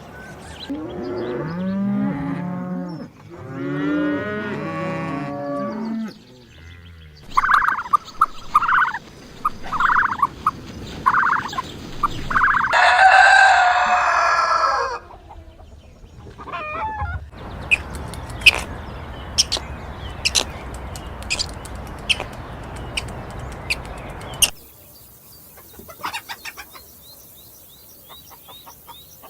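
A run of farm animal calls: cattle mooing in the first few seconds, then chickens clucking and a loud crow-like call about halfway through. After that come a stretch of scratchy noise with clicks and faint chirps near the end.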